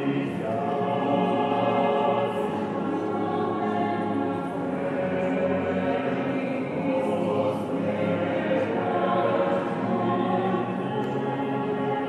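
A choir singing a cappella, many voices together holding sustained chords that shift every few seconds.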